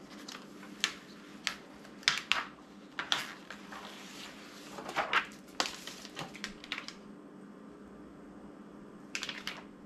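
Heat transfer vinyl being weeded by hand: the thin plastic vinyl and its carrier sheet crinkle and snap in short sharp crackles as they are peeled and handled, many in the first six seconds, then a lull and a few more near the end.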